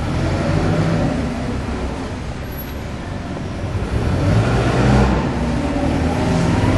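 Steady low rumble of a fishing vessel's engine and machinery heard on board, with a deep hum under a broad noise. It swells a little about four seconds in.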